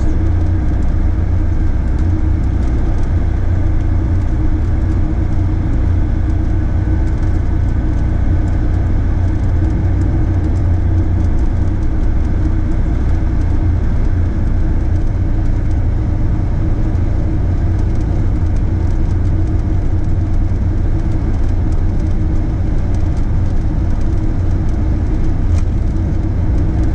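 Motorhome on the move: a steady low engine and road drone that holds the same level and pitch throughout, with no gear changes or revving.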